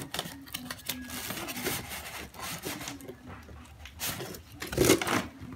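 White foam packing blocks and cardboard rubbing and scraping against each other as a boxed mixer is pulled out of its carton, in short irregular scrapes and clicks with a louder scrape about five seconds in.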